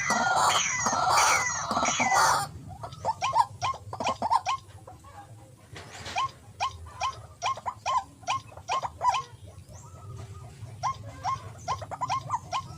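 White-breasted waterhen calling. Loud, harsh repeated calls for the first two and a half seconds, then a long run of quieter, short rising notes, several a second.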